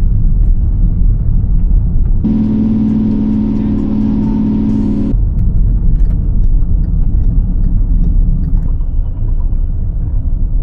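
Mercedes T1 camper van being driven, heard from inside the cab: a steady low rumble of engine and road. About two seconds in, a steadier, higher-pitched engine drone comes in for about three seconds and then cuts off abruptly.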